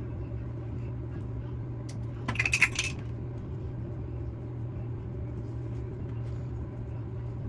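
A brief clatter of small hard objects, like a small metal item set down or dropped, about two and a half seconds in, over a steady low hum.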